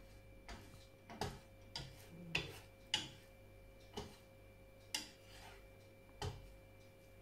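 Wooden spatula knocking and scraping against a non-stick frying pan while an egg omelette is stirred and broken up. A run of irregular taps and short scrapes, about one a second.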